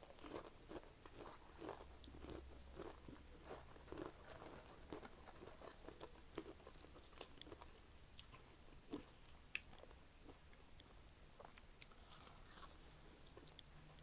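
Close-up mouth sounds of chewing and crunching fried shrimp: a faint run of small crunches and smacks, thick for the first several seconds and sparser after that.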